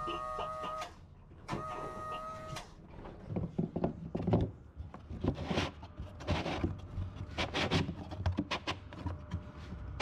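Bilge pump's small electric motor whining on twice, about a second each time, as the newly fitted float switch is lifted to test it. After that come irregular light clicks and knocks of handling.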